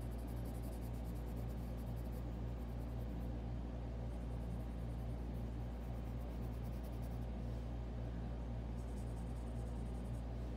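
Graphite pencil lead scratching on sketchbook paper in short shading strokes, in runs during the first three seconds and again near the end, over a steady low hum.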